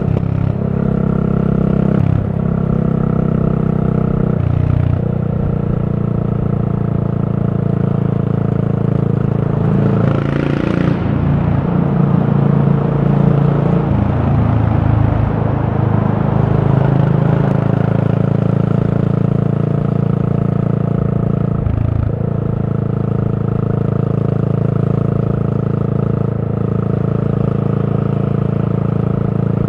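Yamaha SR400's air-cooled single-cylinder four-stroke running under way through a Goods tapered-cone slip-on muffler. The steady exhaust note breaks off briefly a few times, and is rougher and noisier for a few seconds in the middle.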